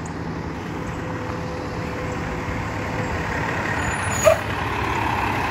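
Mack Granite garbage truck's engine running as it drives up and slows, growing louder as it approaches. A short, loud brake squeak comes about four seconds in.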